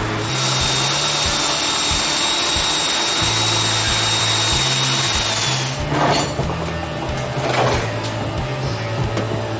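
Handheld electric sheet-metal shear cutting sheet steel, a steady motor whine with cutting noise that stops about five and a half seconds in. Two short, loud rushes of noise follow about six and seven and a half seconds in. Background music plays throughout.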